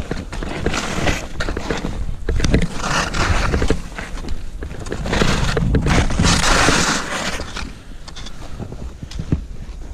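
Skis scraping and carving across firm snow through a run of turns, under a constant rumble of wind on the helmet camera's microphone. The hiss of the skis swells about three seconds in and again, loudest, from about five to seven seconds.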